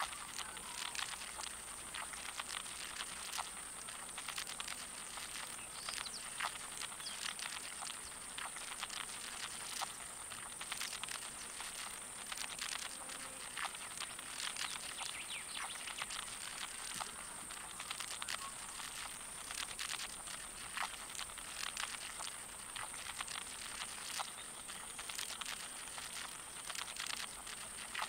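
Blue death feigning beetles crawling close by, their feet making faint, irregular clicking and scratching, over a steady high-pitched hiss.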